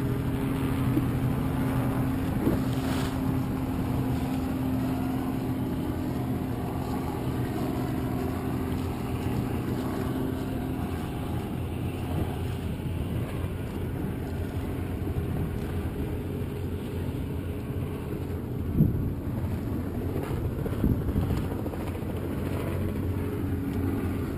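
A motor tender's engine running steadily at low speed, with wind and choppy water noise. Two short thumps come a little past two-thirds of the way through.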